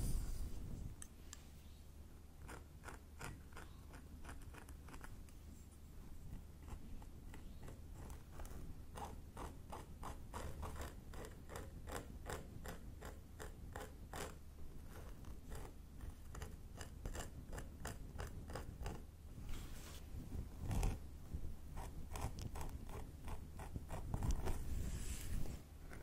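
Thin pointed tool scratching and picking along a scalp through hair, heard very close up: quick runs of crisp little scratches and ticks with short pauses between them.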